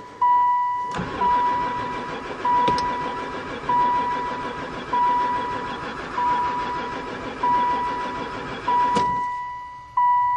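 Starter cranking the long-parked van's engine for about eight seconds without it catching: the engine never fires, which the owner takes for no spark. A steady electronic warning chime beeps repeatedly throughout and carries on after the cranking stops.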